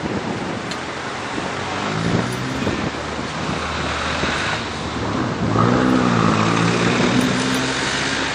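Vehicles passing a railway level crossing: a steady rushing noise, with a motor hum that wavers up and down in pitch and grows louder in the second half.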